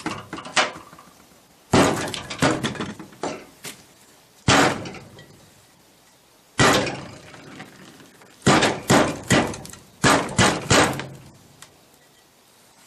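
Sharp metal clanks and knocks of steel transmission parts being struck and handled, some ringing briefly, single strikes about 2, 4.5 and 6.5 seconds in and quick runs of several strikes in the later part.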